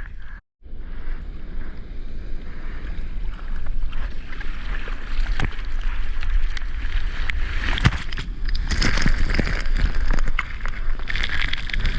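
Water splashing and rushing as a surfer paddles hard with his arms on a surfboard, trying to catch a wave, with wind buffeting the microphone. The sound cuts out for a moment about half a second in, then gets louder from about four seconds in, with a run of splashes near the end.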